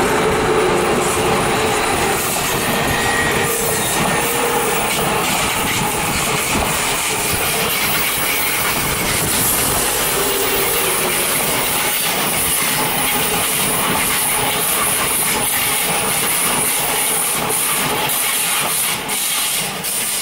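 ICE 2 high-speed train, two units coupled, rolling past on curved track: a steady rumble of wheels on rail, a high hiss that grows stronger about halfway through, and clicks over rail joints late on.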